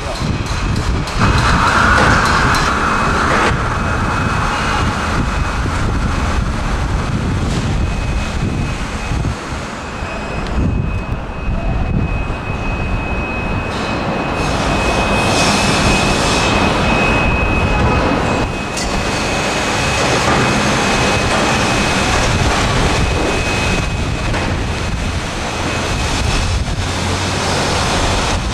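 Wind buffeting the microphone: a steady rumbling roar with no let-up, and a faint thin high whine through much of it.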